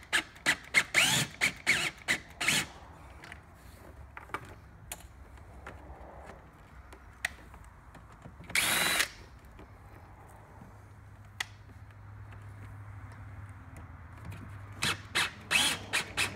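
Cordless drill-driver turning floorboard screws on a mobility scooter, run in short trigger bursts: a quick cluster of bursts at the start, one longer run midway, and another cluster near the end.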